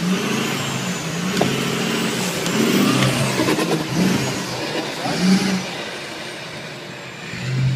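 Off-road 4x4 pickup engine revving up and down hard under load on a steep dirt climb, with its tyres spinning and flinging dirt.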